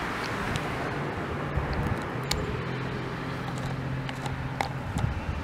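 A car going by on a road, its engine a low steady hum for about three seconds in the middle, over outdoor background noise, with a few faint clicks.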